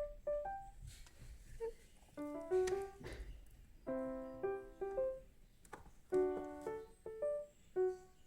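Background piano music: a gentle melody of single notes and soft chords.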